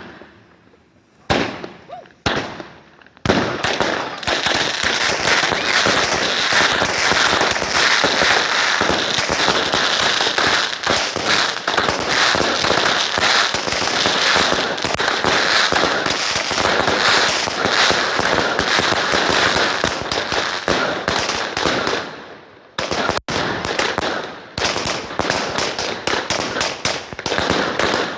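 Fireworks going off: two or three single cracks, then a long run of dense, rapid-fire crackling bangs. They break off briefly about twenty-two seconds in, then start again.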